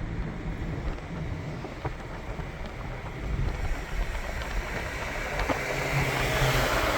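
Steady rumble of a vehicle on the move, with engine hum and wind buffeting the microphone; the noise swells near the end.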